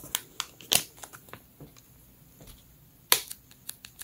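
Soft plastic pack of Clorox disinfecting wipes crinkling in the hands: scattered crackles and clicks, the sharpest about three-quarters of a second in and another just after three seconds, followed by a few smaller ones.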